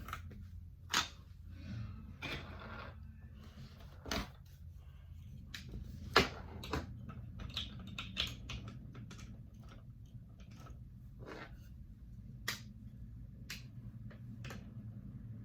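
Irregular sharp clicks and short taps, a dozen or more scattered through, over a low steady hum.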